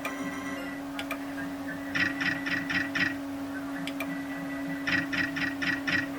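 Slot machine's electronic beeps: two quick runs of about six beeps each, a few seconds apart, with a few single clicks and a steady low hum underneath.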